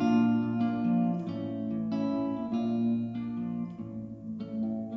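Electric hollow-body guitar playing a picked chord pattern, its notes ringing into one another and changing about twice a second over a sustained low note.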